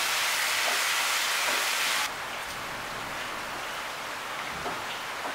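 Spiced potato and tomato masala sizzling in hot mustard oil in a kadai while it is stirred with a wooden spatula, being fried down until the oil separates. The sizzle drops abruptly to a quieter hiss about two seconds in.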